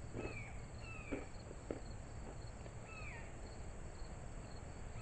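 Insects chirping in a steady, even rhythm, with a bird's short falling whistled call three times. Now and then there is the soft crunch of a puffed corn snack being chewed.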